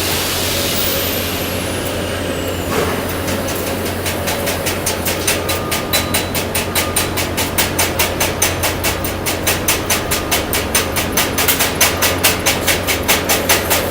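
A chipping hammer rapidly tapping slag off a 6013 stick weld, about five taps a second, starting about four seconds in and growing louder. Before that, a steady hiss cuts off suddenly about three seconds in, over a low hum.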